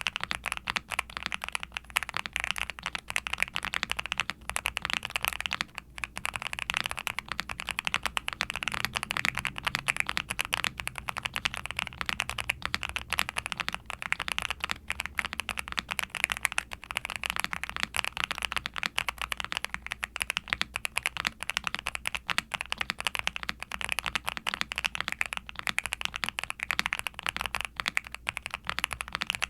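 Steady fast typing on a Nuphy Kick75 mechanical keyboard: ABS case with foam dampening, PC plate, Kailh Cream Pro linear switches with POM housings and stems, and GMK ABS keycaps, giving a dense run of sharp clacky keystrokes with no pauses.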